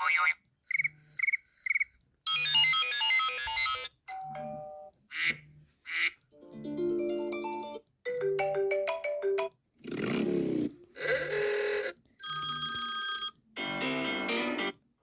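A quick run of iPhone 14 Pro ringtones and alert tones, about a dozen short electronic melodies and chimes, each cut off after a second or so, with a brief gap before the next. Most open with a short low buzz.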